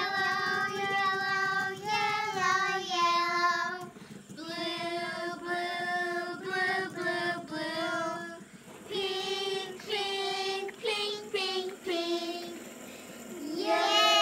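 A child's voice singing a tune in phrases of held notes, with short pauses between the phrases.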